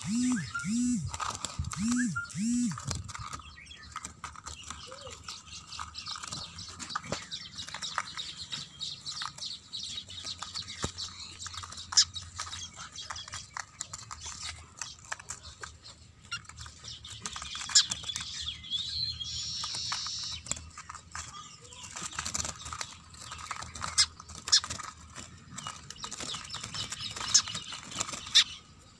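Small birds chirping, with scattered sharp clicks as the wire dome and nooses of a balchatri trap are handled. Four low animal calls come in the first three seconds.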